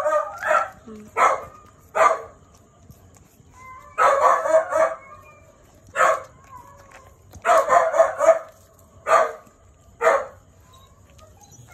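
Dog barking in repeated short, sharp barks, some single and some in quick runs.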